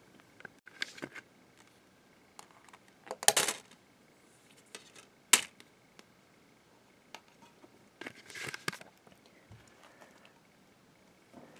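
DVD discs handled in a clear plastic multi-disc case: several short bursts of plastic clicking and rattling as discs come off and go onto the case's hubs, with the sharpest single snap about five seconds in.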